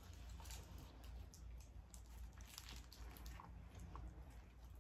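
Faint eating sounds: biting into a foil-wrapped gyro and quiet chewing, heard as soft, scattered clicks over a low room hum.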